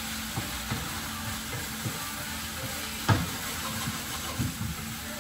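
Beef pieces sizzling in a frying pan with a steady hiss while being stir-fried, the spatula knocking lightly against the pan, with one louder knock about three seconds in.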